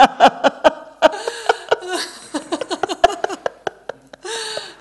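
Women laughing in rapid, choppy bursts, with a breathy drawn-out laugh about four seconds in.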